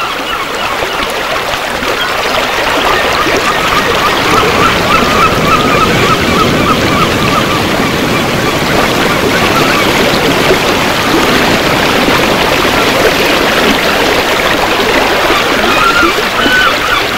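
Beach ambience: a steady rush of sea surf, with many short high chirps repeating over it.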